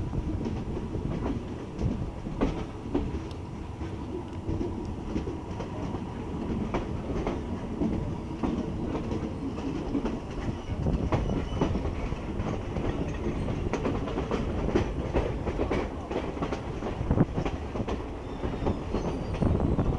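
Train running on jointed rails: a steady rumble with repeated clickety-clack knocks of the wheels passing over the rail joints.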